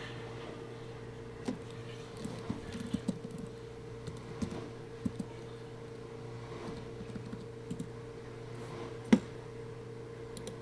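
Computer keyboard typing: scattered, irregular key clicks, with one much louder keystroke about nine seconds in, over a steady low electrical hum.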